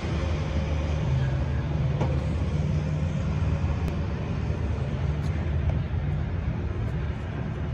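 Steady low rumble of a vehicle engine idling, over outdoor background noise.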